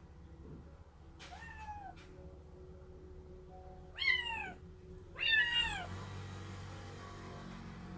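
Kitten meowing: three short calls, each falling in pitch. The first is fainter, and the last two come louder about a second apart.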